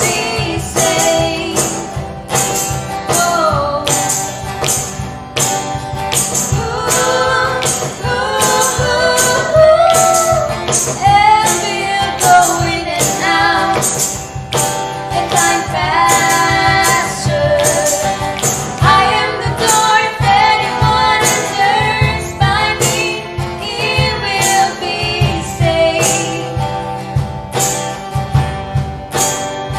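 A praise-and-worship song with a woman's singing voice leading over a band, a steady beat of sharp strokes about twice a second.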